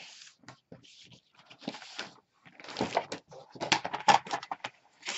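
Kraft paper rustling and sliding as it is handled and smoothed. In the second half come a quick run of light clicks and taps as the paper is moved about.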